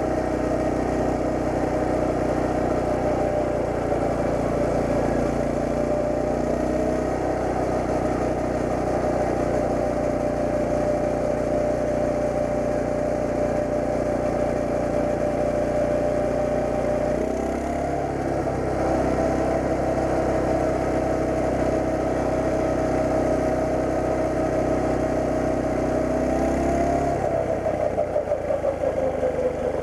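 Coleman CT200U mini bike's single-cylinder four-stroke engine running steadily. Its pitch dips and picks back up about halfway through, and shifts again near the end.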